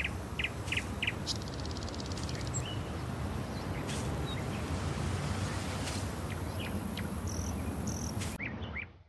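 Outdoor nature ambience: birds giving short chirps and a brief buzzing trill, over a steady low background rumble. The sound cuts out and fades near the end.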